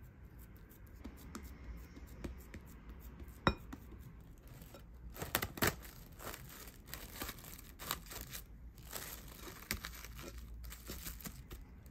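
Plastic cling film crinkling and rustling as a hand presses it down over dough in a glass bowl, in dense crackly bursts through the second half. Before that, quieter scraping of a spatula in the bowl and one sharp knock a few seconds in.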